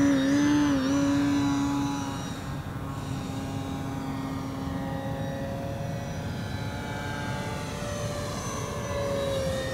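Electric motor and propeller of an RC Super Decathlon model plane in flight. Its pitch wavers with quick throttle changes at first, then settles into a steadier, fainter drone about two seconds in. Near the end the sound swells a little and falls in pitch as the plane passes.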